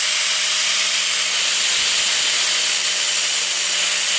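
Angle grinder with a flap disc running steadily, grinding the sharp burrs off an aluminum bar: a constant motor whine under a dense grinding hiss.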